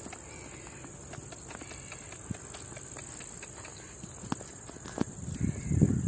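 Insects chirring in a steady high-pitched drone, with light scattered footsteps on the dirt and a few louder low thumps near the end.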